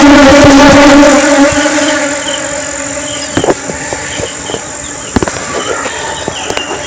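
Honeybee buzzing in flight close to the microphone, a loud steady hum that fades away after about a second and a half as the bee moves off, leaving a quieter background with a few faint clicks and short chirps.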